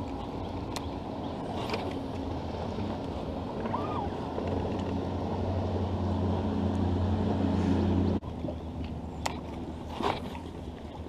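Bass boat's outboard motor running under way, a steady low hum with wind. It grows louder for most of the stretch, then drops suddenly a little after eight seconds to a quieter hum.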